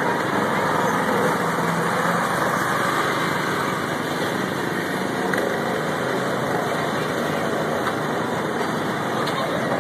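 Small petrol engines of go-karts running steadily as the karts drive around the track.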